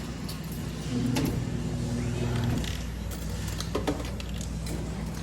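Claw machine's electric motor whirring for about a second and a half, then stopping, over a steady electrical hum; a couple of sharp clicks follow near the end.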